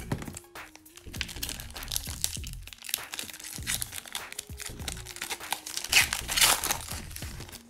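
Foil wrapper of a hockey card pack crinkling and crackling as it is torn open and pulled off the cards, loudest about six seconds in, over background music.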